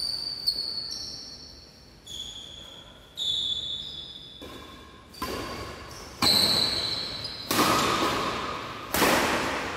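Badminton rally: a string of sharp racket strikes on the shuttlecock, about eight in all, each with a short ringing ping from the strings and an echo that dies away in the large hall. The hits come closer together and grow louder toward the end.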